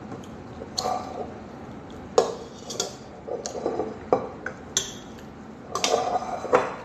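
Tableware clinking: a series of irregular sharp clinks and taps on a plate during a meal, coming closer together near the end.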